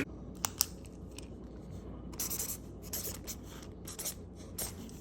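A few sharp clicks, then several brief scraping, rustling noises over a low steady hum.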